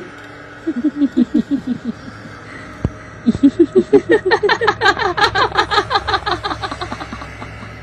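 A woman's evil, cackling laugh used as a horror sound effect. A short burst of rapid laughs comes about a second in, then a longer run of cackling from about three seconds that rises in pitch.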